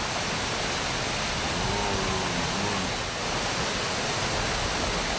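Waterfall's steady, loud rush of falling water, even throughout; a faint voice is heard briefly about two seconds in.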